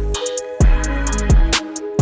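Background music with a steady beat: kick drum, hi-hats and a plucked or keyboard melody.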